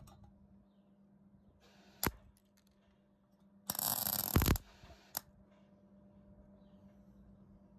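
A MIG welder firing one short burst of about a second, a crackling hiss, with a sharp click a little before and another just after. A low steady hum runs underneath.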